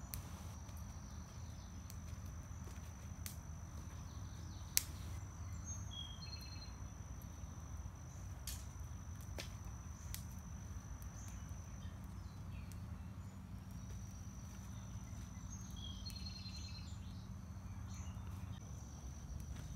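Outdoor campsite ambience: an insect's steady high-pitched trill runs on with a few brief breaks over a low rumble. Scattered sharp clicks and snaps from the campfire come through, the loudest about five seconds in. A bird calls briefly twice.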